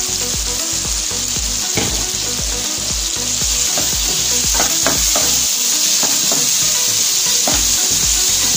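Onions, tomatoes and spice masala sizzling in hot oil in a kadai, with a wooden spatula stirring and scraping through them.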